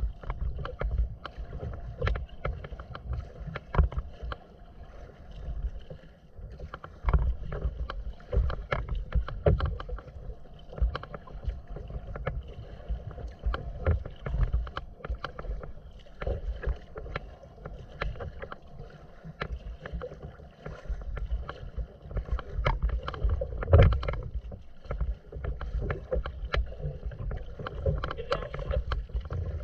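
Choppy water lapping and splashing against the hull of a moving kayak in irregular slaps, one louder splash about two-thirds of the way through, over a low wind rumble on the microphone.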